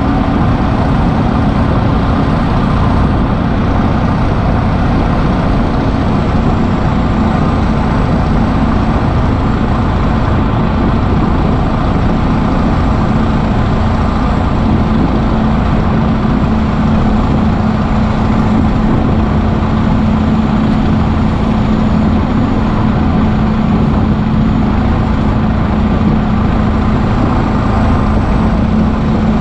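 Kirovets K-700 tractor's turbocharged diesel engine, fitted with a new turbocharger, running steadily and loud as the tractor drives along. A faint, steady high whistle sits above the engine sound.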